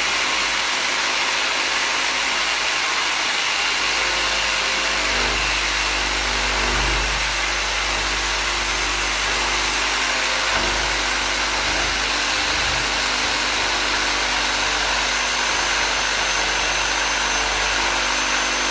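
Corded jigsaw running steadily while its blade cuts through painted baseboard, making a coping cut that removes the back of the profile.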